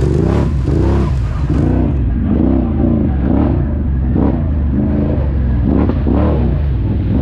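ATV engine revving up and down again and again over a steady low drone.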